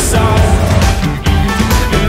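Loud rock-style background music with a strong low end.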